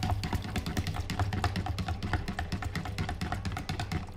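A spoon stirring cornstarch into cold water in a plastic measuring jug, clicking rapidly against the jug's sides, over a low steady hum. The clicking stops at the very end.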